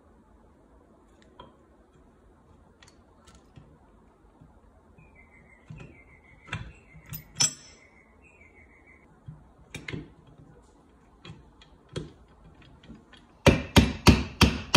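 Scattered light metal clicks as transmission gear shafts are fitted into an aluminium engine crankcase. Near the end comes a quick run of mallet taps, about four a second, knocking the gear shafts down into place where a gear tooth was sitting on the other gear.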